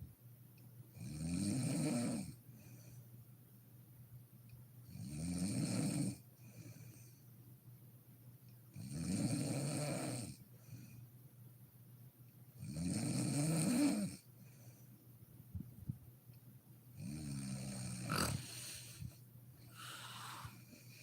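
A sleeping woman snoring: five loud snores come about four seconds apart, each a second or two long, with a faint breath after each. A short sharp click comes during the last, longer snore.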